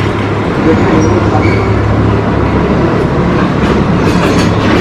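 Covered freight wagons of a goods train rolling slowly past: a loud, steady rumble of steel wheels on rail, with a few clicks near the end as wheels cross rail joints.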